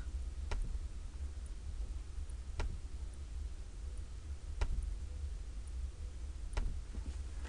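Four faint, sharp ticks evenly spaced about two seconds apart, over a low steady hum.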